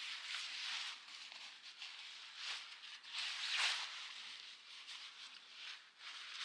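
Irregular outdoor rustling with soft patter, swelling to its loudest about three and a half seconds in.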